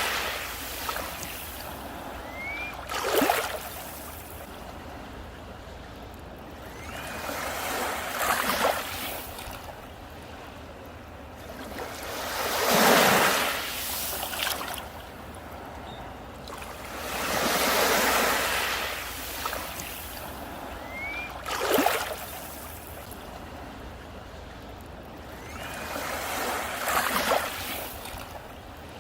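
Ocean waves breaking on a beach one after another, a surge of surf every four to five seconds, some ending in a sharp crash and the loudest about halfway through.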